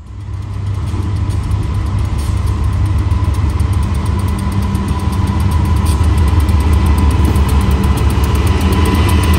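Providence & Worcester freight train's GE B40-8 diesel locomotives approaching and drawing alongside, their engines rumbling and growing louder as they near, with a steady high whine held over the rumble.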